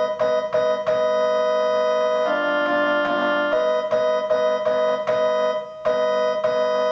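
Electronic keyboard with an organ-like tone playing car-horn-style chords: a run of short repeated stabs, then long held chords with a change of chord about two seconds in, and more stabs before a held chord near the end.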